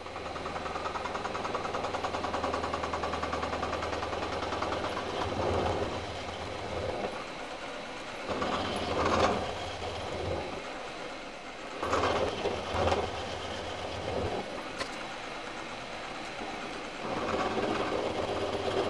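Milling machine running, its end mill cutting into the finned aluminium cylinder of a Manson hot-air engine: a steady motor hum with several louder bursts of cutting noise as the cutter bites.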